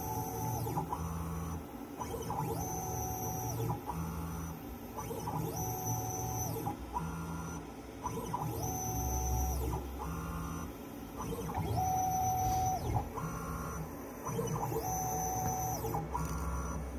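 Stepper motors of a CNC 3040 router whining through a string of short moves, each about a second long, with the pitch ramping up and down and stopping between moves, as a 0.5 mm V-bit mills a circuit board.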